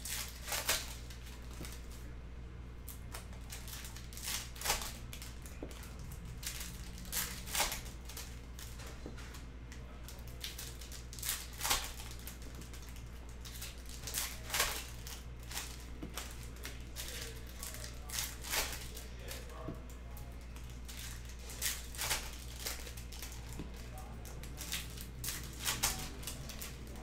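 Glossy chrome trading cards and foil pack wrappers handled by hand: short rustling swishes every second or two, often in pairs, as cards are slid and flipped and wrappers crinkle, over a steady low hum.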